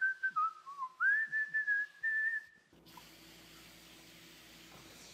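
A man whistling a tune in short, gliding notes, then from about three seconds in the steady hiss of an aerosol can spraying foaming degreaser onto greasy cast-iron clutch parts.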